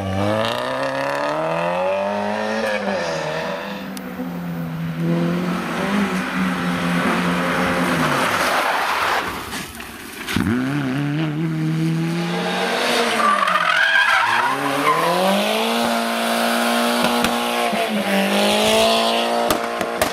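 Rally car engines revving hard and dropping back over and over, with tyres squealing as the cars slide and spin on tarmac. Near the end one engine holds a high steady note while its tyres spin.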